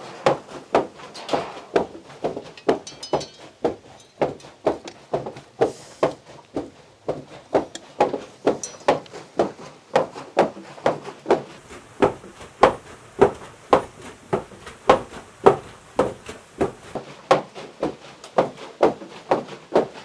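Water-powered wooden fulling mill (pivă): its heavy wooden hammers thud in a steady rhythm, about two blows a second, pounding woven wool cloth in the wet trough to full and thicken it.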